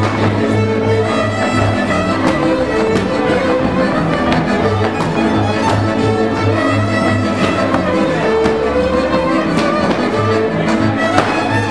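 Transylvanian village string band playing dance music: several fiddles on the melody over contra chords and a bowed double bass keeping a steady, evenly pulsing beat.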